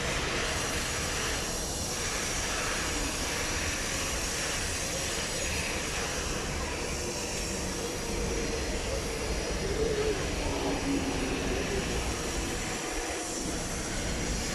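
Steady rumble of MRT trains and their surroundings at an elevated station platform, with a faint whine rising and falling about ten seconds in.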